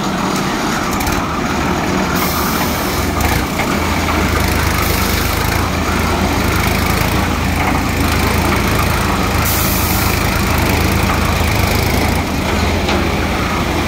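Tractor engine running steadily at a constant speed to power the transit mixer, a low even hum that grows a little stronger a few seconds in.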